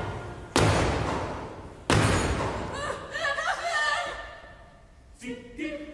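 Two loud sharp whacks about a second and a half apart, each ringing out in the hall, from a rolled-up prop struck in a slapstick beating on stage. Laughter follows.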